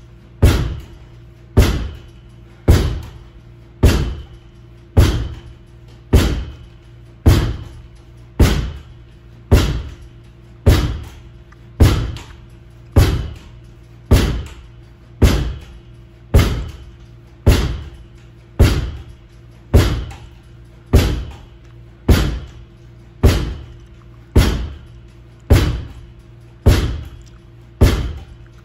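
Lacrosse ball being thrown into a rebound net and caught, one sharp smack with a short ringing tail about every second, in a steady rhythm. Steady low tones sit underneath.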